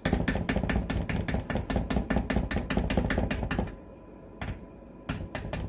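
Wire whisk beating cake batter in a bowl by hand, its wires clicking against the bowl in a fast, even rhythm of about eight strokes a second. The beating stops for about a second and a half, then starts again near the end.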